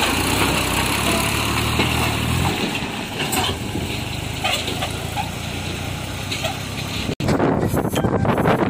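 Massey Ferguson 241 DI tractor's three-cylinder diesel engine running as it pulls a loaded soil trolley past and away, its sound fading after a couple of seconds. After a sudden cut near the end, wind buffets the microphone.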